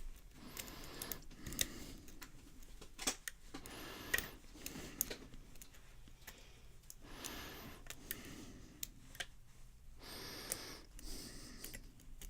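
Lock pick and tension wrench working the pins of a Cisa five-pin padlock: scattered small metallic clicks and short scrapes as the pins are raked and set.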